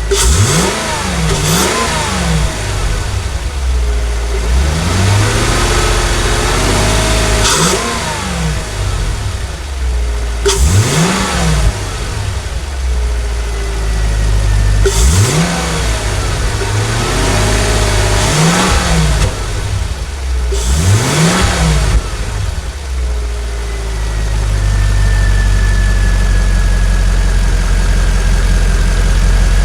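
Volvo S80's 4.4-litre V8 free-revving through an open cone air filter, heard close at the intake: several quick throttle blips, each rising and falling in pitch, then the engine settles to a steady idle for the last several seconds.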